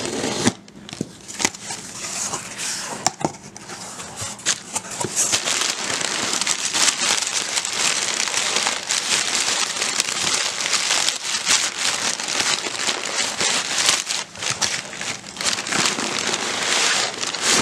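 Crumpled brown kraft packing paper crinkling and rustling as it is pulled out of a cardboard box. It begins with scattered scrapes and clicks of scissors slitting the packing tape and the box being opened, and the crinkling turns dense and continuous about five seconds in.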